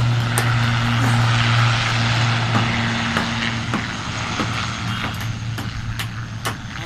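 Twin-engine turboprop airliner on its takeoff run, its engines and propellers giving a steady low drone that fades away over the last few seconds. Scattered sharp clicks sound throughout.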